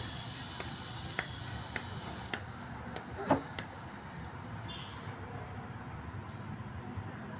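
Steady high-pitched chirring of insects in grassland, with a few faint clicks and one louder short knock about three seconds in.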